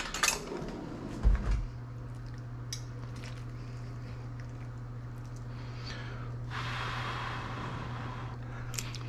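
A spoon clinks and knocks against the bowl as a bite of chicken stew is taken, then quiet eating over a low steady hum, with a soft breathy hiss for about two seconds near the end.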